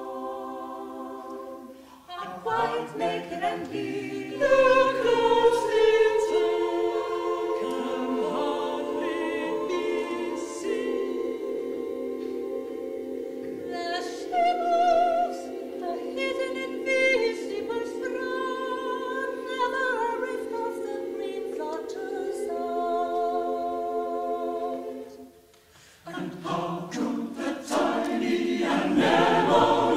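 Mixed choir singing sustained chords, breaking off briefly twice, shortly after the start and about four seconds before the end, then coming back in.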